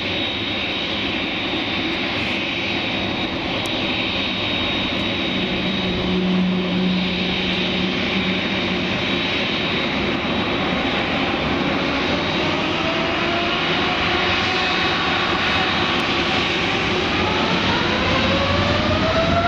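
Jet engines of a taxiing Boeing 747 freighter running: a steady broad rush with a high whine on top. Over the last several seconds a whine rises in pitch and the sound grows a little louder.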